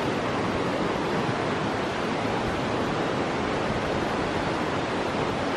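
Taughannock Falls, a tall plunge waterfall, pouring into its gorge, with the swollen creek rushing over rocks below: a steady, unbroken rush of falling water.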